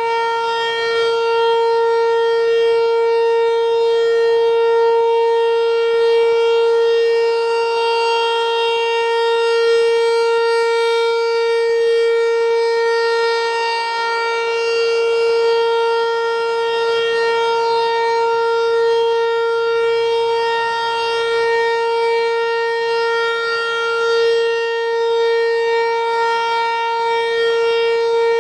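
Federal Signal 508 rotating outdoor warning siren sounding a steady alert during a test: a loud, even tone that holds its pitch without rising or falling, swelling slightly in loudness every few seconds as the head turns.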